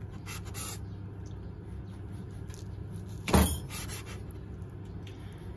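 Chef's knife cutting through a bread roll on a wooden cutting board: a few faint cutting sounds, then one sharp knock of the blade against the board a little past three seconds in. A low steady hum runs underneath.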